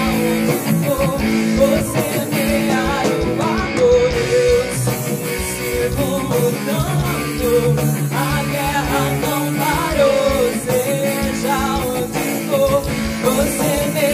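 Live rap-core band music: electric guitar, bass, drums and keyboard playing, with a wavering melodic line above the steady lower notes.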